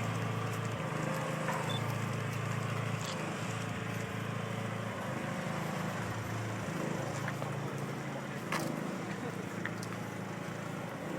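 Heavy road vehicle's engine running steadily at low speed, with one short knock about three quarters of the way through.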